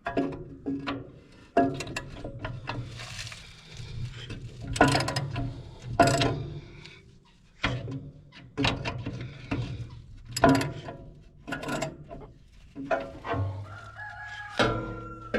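Irregular metallic clanks, clicks and knocks of wrenches on the wood chipper's bolts and belt-adjuster hardware during belt tightening. A rooster crows in the background.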